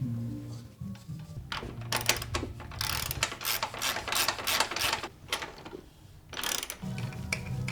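Rapid ratcheting clicks from a pawl mechanism being worked during the bike build, in a dense run through the middle, with a low steady hum underneath.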